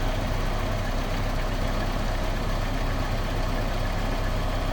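Toyota Kijang Kapsul LGX 1.8 EFI petrol four-cylinder engine idling steadily, with a cricket-like "krik krik" chirp over the engine note. The chirp goes away whenever the clutch pedal is pressed and returns when it is released; the owner wonders whether it is a piston touching metal.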